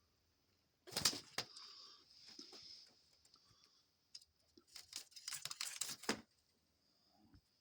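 Doves shifting on their nest: a sharp knock and clatter about a second in, then a burst of rustling and clicking of nesting material, a plastic zip tie among it, around five seconds in.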